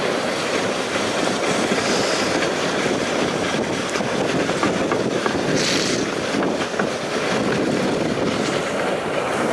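Dog sled runners sliding over packed snow: a steady, grainy scraping with a brief hiss about six seconds in.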